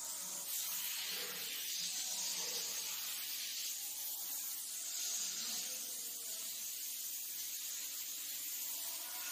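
Compressed-air gravity-feed paint spray gun hissing steadily as it sprays paint onto a wall.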